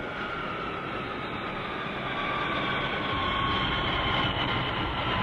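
Cartoon sound effect of a continuous low rumble with a whooshing, wind-like hiss and faint steady high whines over it. It swells louder and deeper in the second half.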